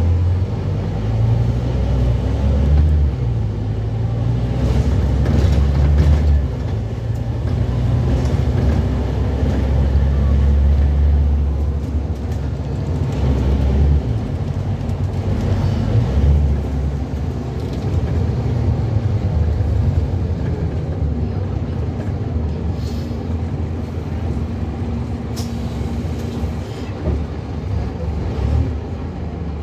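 Scania N230UB bus's five-cylinder diesel engine, heard from inside the passenger saloon as the bus drives. Its low drone swells and eases several times as it pulls and backs off, with road noise and a few knocks and rattles from the bodywork.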